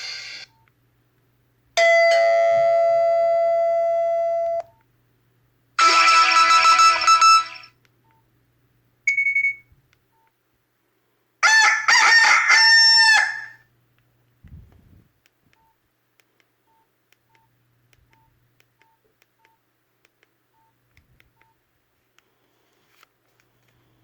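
Nokia 5300 XpressMusic phone speaker playing short notification tones one after another. First a held chime of steady tones lasting about three seconds, then a denser chime about six seconds in, a single short beep near nine seconds, and a longer tone with bending, wavering pitch around twelve seconds. Only faint clicks follow.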